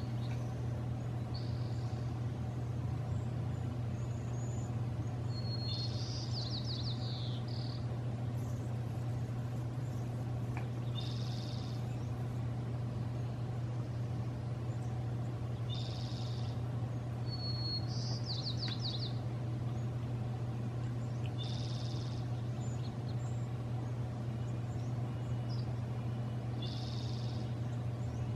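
Songbirds singing: a short high phrase repeated every four to five seconds, and three times a longer song of one note followed by a quick descending trill, over a steady low hum.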